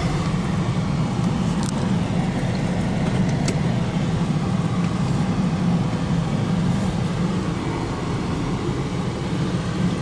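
Steady car engine and road noise heard from inside the cabin of a moving car, a constant low drone, with a couple of faint clicks in the first few seconds.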